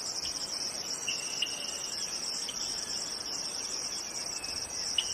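Steady chorus of insects, a continuous high trill, with a few short chirps standing out over it.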